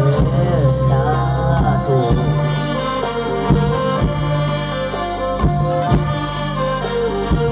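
Isan mor lam band music: sustained drone notes under a melody that glides up and down in the first couple of seconds, with scattered drum hits.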